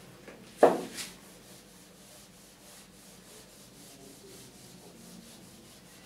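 Board duster rubbing across a whiteboard as it is wiped clean: one louder swipe about half a second in, then a run of faint, quick back-and-forth rubbing strokes.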